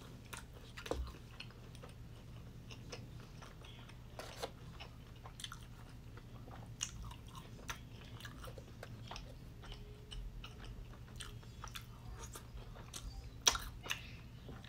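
Close-miked chewing of gravy-dipped popcorn chicken: soft, irregular wet clicks and crunches from the mouth, with one sharper, louder snap near the end.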